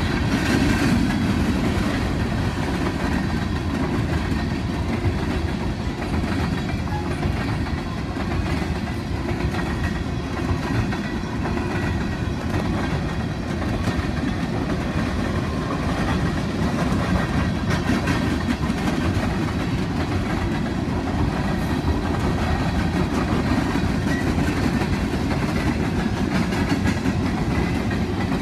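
Freight train of Reading & Northern open-top hopper cars rolling steadily past, with the wheels clacking over the rail joints.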